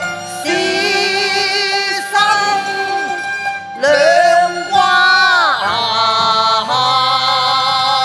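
Cantonese opera (yuequ) singing: a voice holding long, wavering notes with falling slides, in phrases over the accompanying instrumental ensemble.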